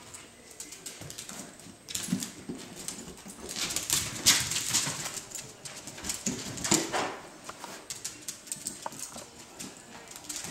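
A dachshund tussling with a helium balloon on a wooden floor: irregular scrabbling of claws and the balloon rubbing and bumping, with a few short dog whimpers.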